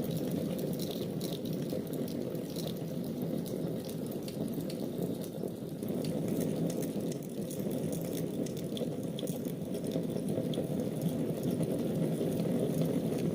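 Fire burning in a fireplace: a steady low rush of flames with small crackles and pops scattered throughout.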